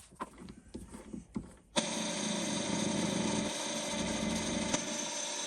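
A few light handling clicks, then about two seconds in an electric power tool starts up and runs at a steady speed with a constant whine.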